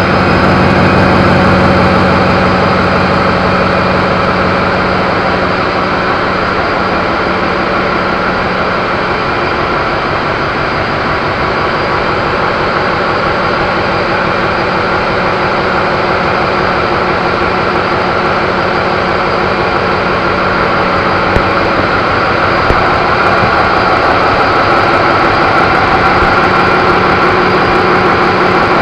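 Loud, steady din of a large container ship's engine-room machinery, an unbroken mechanical drone with a low hum that is strongest near the start.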